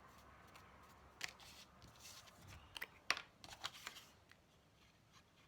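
Faint rustles and light taps of paper and cardstock being handled, a few short scattered sounds in the first few seconds and then near quiet.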